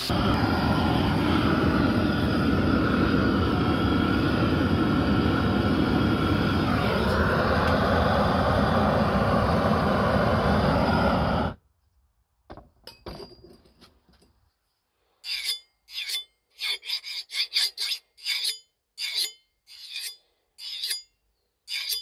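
Belt grinder running with a saw-blade-steel knife blade held against the abrasive belt: a loud, steady grinding whose pitch dips briefly about seven seconds in, cutting off abruptly about halfway through. After a few faint sounds, about a dozen short scraping strokes follow, roughly two a second.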